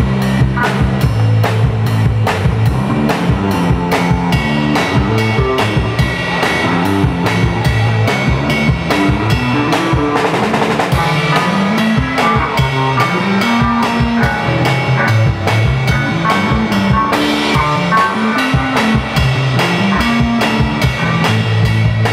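Live rock band playing: a drum kit keeping a steady beat with bass drum and snare, under a moving bass line and electric guitars, with a cymbal wash about ten seconds in.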